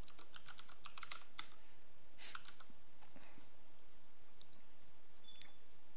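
Computer keyboard typing: a quick run of keystrokes in the first second and a half, a short burst a little over two seconds in, then a few scattered taps.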